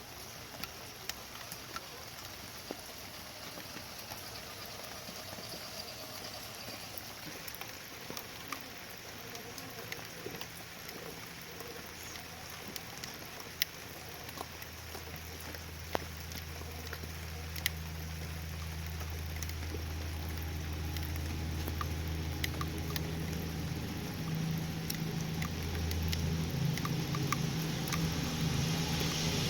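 Steady rain with scattered sharp drip ticks. From about twelve seconds in, a low steady engine-like hum builds up under it and grows gradually louder toward the end.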